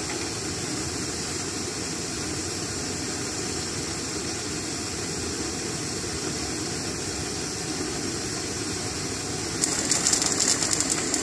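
A steady roar in a kitchen. About ten seconds in, a pot of red lentils at a heavy boil joins it with rapid bubbling and popping.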